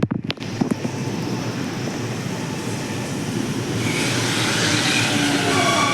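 Tobu 50070-series electric train arriving at a platform and slowing. A few sharp clicks sound in the first second. Then the running noise grows, and from about four seconds in a high whine of several tones slowly falls in pitch as the train brakes.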